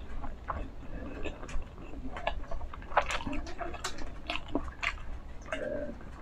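A person drinking water from a glass mug: gulping and swallowing, with short wet mouth clicks scattered throughout.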